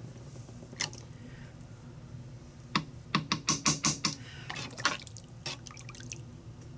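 Metal spoon clinking against the slow cooker's pot and dipping into thin cooking liquid as ketchup is knocked off into the barbecue sauce: a few separate clicks, with a quick run of about six taps in the middle.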